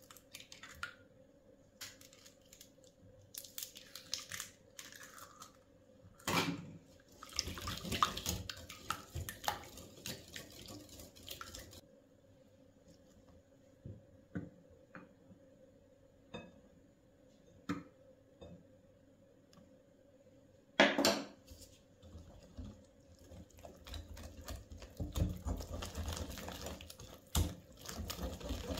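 Eggs cracked on the rim of a glass mixing bowl and a wire whisk beating and clinking against the glass as milk, eggs and flour are mixed into a batter, with a couple of sharp knocks on the bowl and a stretch of steady whisking near the end.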